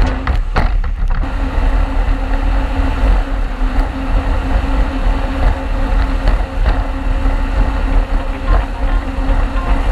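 Jet ski running at speed: a steady engine drone under loud rushing wind and water spray, with the wind buffeting the bow-mounted microphone.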